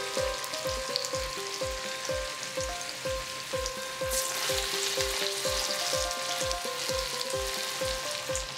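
Bean vadas deep-frying in hot oil with a steady sizzle, which surges about four seconds in as another lump of mixture is dropped into the oil. Background music with a steady beat plays along.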